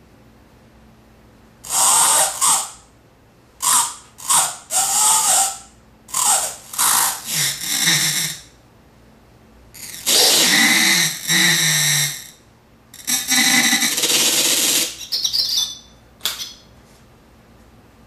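Circuit-bent Sounds of Nature flashlight toy playing its nature sound samples pitch-bent and glitched: a string of harsh, noisy bursts a second or two long with wavering, gliding pitch, separated by short pauses.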